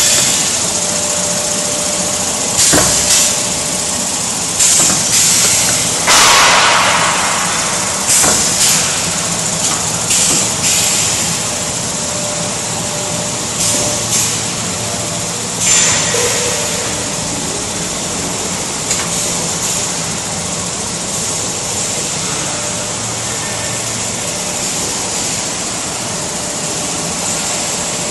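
Chocolate chip depositing machine running: a steady mechanical hum with short hisses of compressed air from its pneumatic depositor, often in pairs, every second or two for the first half, then mostly just the steady hum.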